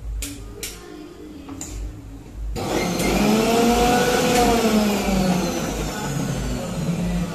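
Kitchen mixer grinder (mixie) switched on about two and a half seconds in: the motor whirs up in pitch and then slows again as it grinds in its steel jar. A few sharp clicks come before it.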